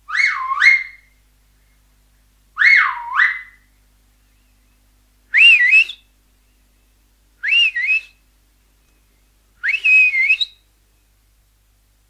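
Finger whistle: five short whistles about two seconds apart, each swooping down in pitch and back up. The last three are higher and waver.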